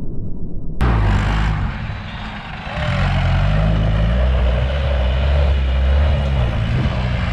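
Off-road jeep engine running and revving, its pitch rising and falling as it works. For the first second there is only a low rumble, then the engine sound cuts in abruptly.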